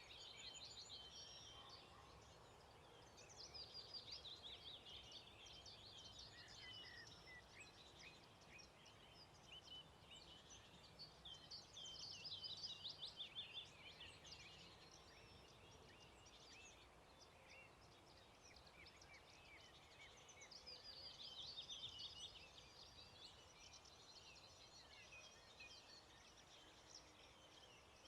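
Songbirds singing in a dawn chorus: quick chirps and trills throughout, with louder song phrases about four, twelve and twenty-one seconds in.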